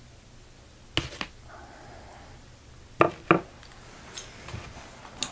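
A few sharp clicks and taps from hands handling small objects: two close together about a second in, two more about three seconds in, and one near the end, over quiet room tone.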